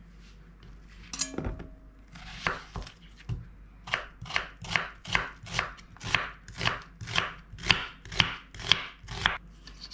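Kitchen knife slicing a white onion on a wooden cutting board. A few scattered knocks come first, then from about four seconds in a steady run of cuts, about two a second, each ending in a tap of the blade on the board.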